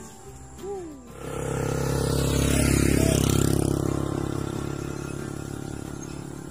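A motor vehicle passing by on the road: engine and tyre noise build up from about a second in, peak around three seconds in, then fade slowly.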